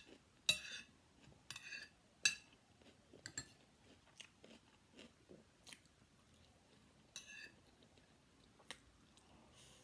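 Close-miked chewing with crunchy bites of fried rice, about half a dozen irregular crackly crunches, the busiest in the first three seconds, with a spoon scraping and tapping on a ceramic plate and bowl.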